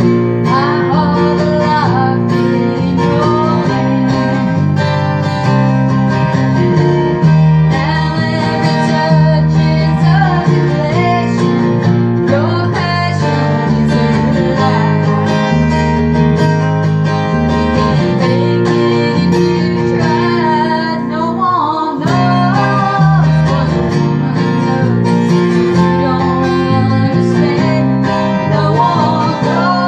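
A band playing a country song: strummed acoustic guitar over a steady bass, with a wavering lead melody line above.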